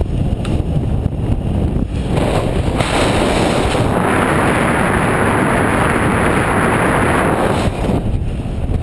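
Wind buffeting a GoPro's microphone in paraglider flight: a loud, steady rumble that grows rougher and hissier about three seconds in and eases again near the end.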